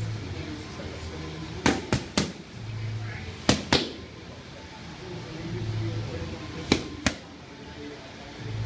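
Boxing gloves striking focus mitts in quick combinations, each punch a sharp smack: three in a row about two seconds in, then a pair just past the middle, then another pair near the end.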